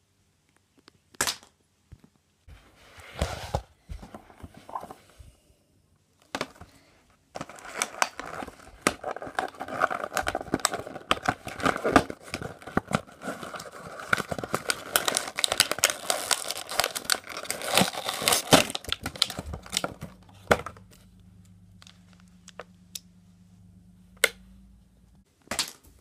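Toy blister pack of plastic and cardboard torn open by hand: a few taps, then a long stretch of crinkling and tearing that dies away after about twenty seconds.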